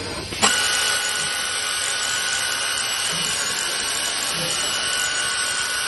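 Morbidelli Author 600 KXL CNC machining center running as it machines a curved wooden part: a steady high whine over a rushing noise. It comes in suddenly about half a second in.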